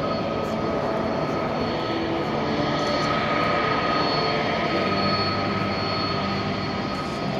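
Airbus A330 airliner's twin jet engines running at taxi power as it rolls along the taxiway: a steady rumble with a high, even whine over it.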